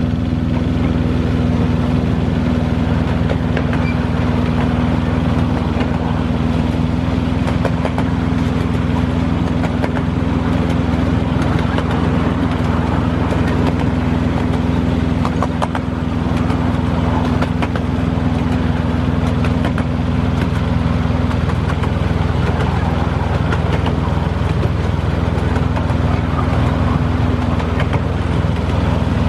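Engine of a 7¼ inch gauge miniature diesel-outline locomotive running steadily under way, heard from just behind the cab, with occasional faint clicks from the wheels on the track.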